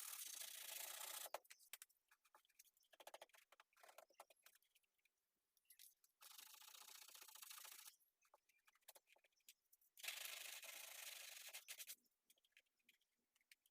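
Hand sanding a glued glass-fibre sheet patch on car bodywork with 80-grit sandpaper, giving three spells of steady rubbing. The first ends about a second in, a fainter one comes in the middle, and the last comes near the end.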